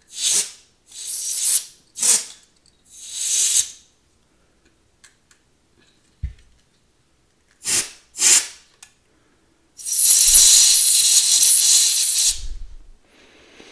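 Compressed air hissing through a duster's thin straw nozzle, blowing caked flint dust out of an automatic lighter's mechanism: four quick bursts, then two more, then one long blast of about two and a half seconds, the loudest. A soft knock comes between the bursts.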